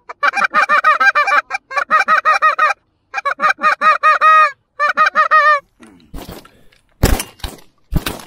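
Rapid, loud runs of Canada goose honks and clucks, breaking off about five and a half seconds in. Near the end come several sharp shotgun shots in quick succession as the geese are fired on.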